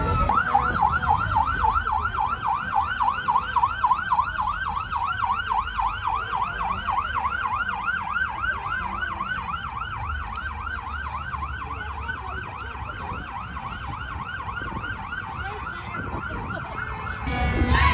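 Emergency vehicle siren in fast yelp mode: a rapid up-and-down warble about five times a second. It grows slowly fainter and stops shortly before the end.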